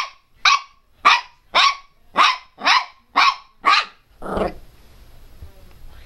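Miniature pinscher puppy barking: a regular run of eight sharp, high-pitched barks, about two a second. The barks stop about four seconds in, followed by one lower, rougher sound.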